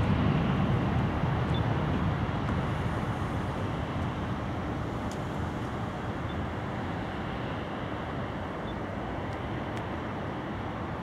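Embraer 170 regional jet's twin turbofan engines at takeoff thrust, a steady low jet noise that fades over the first five seconds as the aircraft rolls away down the runway, then holds steady as it lifts off and climbs out.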